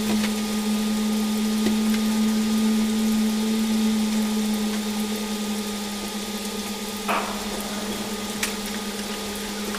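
A steady low machine hum with a hiss behind it, slightly quieter in the second half, with a few faint clicks and a short rustle about seven seconds in.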